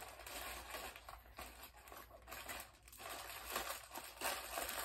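White packaging being torn and crumpled open by hand: an irregular crinkling and rustling with a few short pauses.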